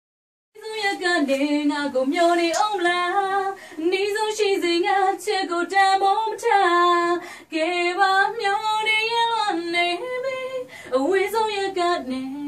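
A woman singing a melody alone, with no accompaniment to be heard. She breaks briefly in the middle and moves into a long held note near the end.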